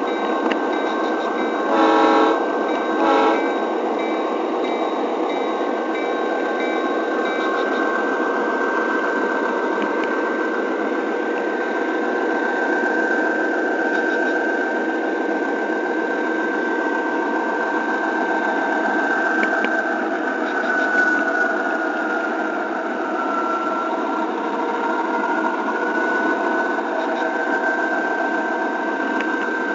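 Model train running on a model railroad: a steady small-motor whir and wheel noise on the rails, with a steady whine that dips in pitch and comes back up about two-thirds of the way through. Two short horn blasts, a few seconds in.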